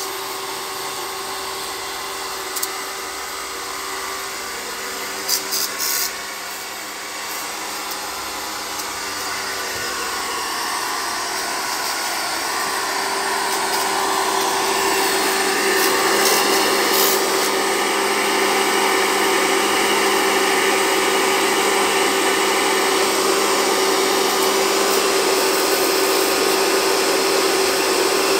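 Pressure washer running with a steady hum, its water jet hissing against a wooden and wire-mesh quail brooder cage; the spray noise grows louder from about a third of the way through and then holds. A few short clicks in the first six seconds.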